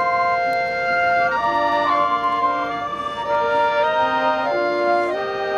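Marching band winds playing sustained, slowly shifting chords.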